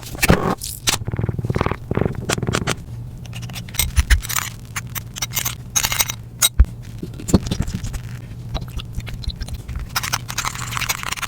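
Toothpaste slime being mixed: scraping with many irregular sticky clicks and crackles.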